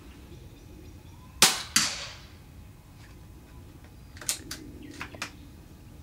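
A single rifle shot about a second and a half in, with a ringing tail and a second sharp crack a moment after it. Several quieter clicks follow near the end.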